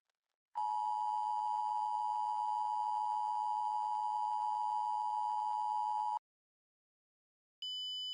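Emergency Alert System attention signal: a steady electronic two-tone alert held for about five and a half seconds, starting half a second in and cutting off abruptly. It is the alert that precedes a test message. A different, higher steady tone starts near the end.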